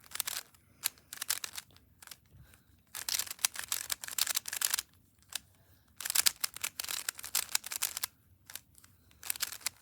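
A Rubik's Cube being turned fast by hand: runs of rapid plastic clicking and scraping as the layers turn, each run lasting up to about two seconds, with short pauses between.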